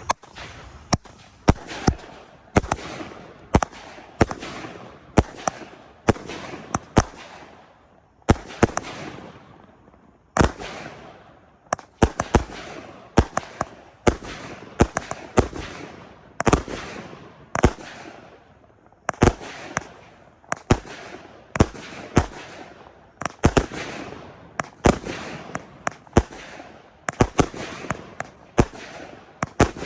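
Two consumer firework cakes, Hey Lucy and Horn Dog, fused together and firing a 40-shot barrage: a run of sharp bangs, often in close pairs, about one to two a second, each followed by a fading rush of crackling noise, with brief lulls between volleys.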